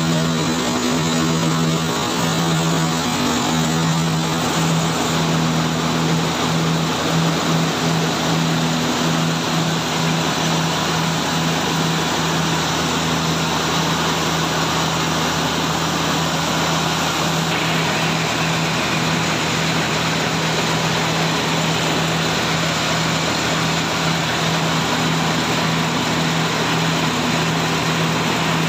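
Rice milling machinery running steadily: a constant motor hum with the continuous hiss of rice grains pouring through the machine.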